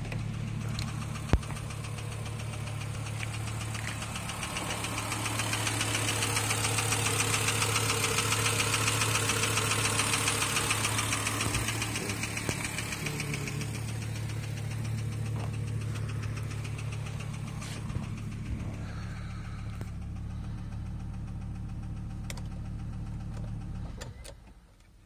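Volvo S70 T5's turbocharged inline five-cylinder engine idling with a rhythmic rod knock from a worn connecting-rod bearing. It runs louder for a stretch in the middle, then is shut off near the end.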